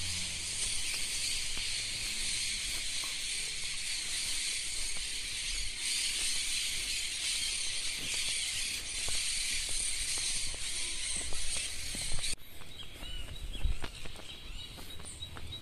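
A steady, high-pitched outdoor hiss with no pitch or rhythm in it, cutting off suddenly about twelve seconds in. After it come faint chirps and scattered footsteps on a road.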